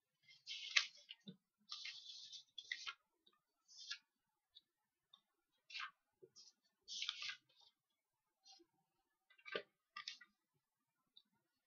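Faint, irregular clicks and short scratchy rustles, scattered and unevenly spaced, the longer rustles lasting about half a second.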